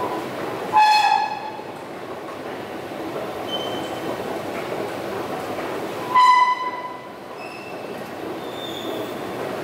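Steady rumbling subway-station background noise, broken twice by a short, loud, pitched signal tone: once about a second in and again about six seconds in.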